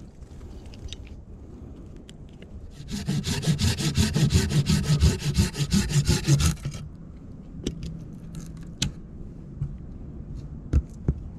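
Folding pruning saw cutting through a freshly cut wooden pole in quick, even strokes. The sawing starts about three seconds in and stops after about four seconds, followed by a few sharp clicks.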